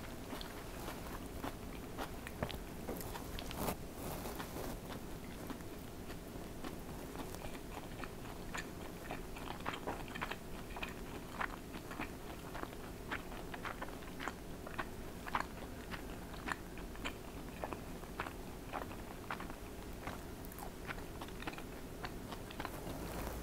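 Eating sounds: a person chewing food, with many small, crisp crunches and clicks following one another.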